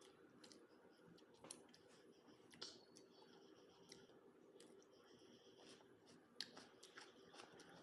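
Faint close-up eating sounds: scattered wet mouth clicks and smacks while chewing, irregularly spaced over a faint steady hum.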